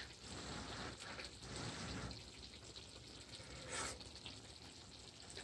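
Faint breathy puffs and mouth noises from someone eating a very hot bite of food, over a low steady hiss.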